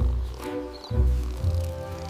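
Instrumental background music, with held notes and new bass notes at the start and about a second in.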